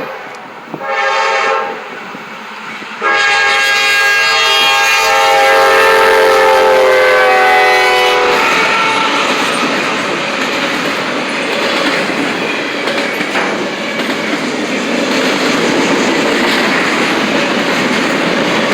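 Locomotive horn giving a short blast about a second in, then a long blast from about three seconds that drops in pitch as the train goes by. After that, the steady rumble and clickety-clack of the train's cars rolling past.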